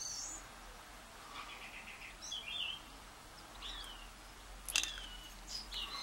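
Faint bird chirps, a few short falling calls spaced a second or so apart, over quiet room tone, with a single light click about three-quarters of the way through.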